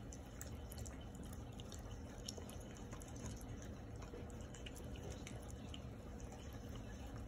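Miniature dachshund eating soft chicken meatballs and vegetables from a stainless steel bowl: faint, irregular wet smacking and chewing clicks over a low steady background hum.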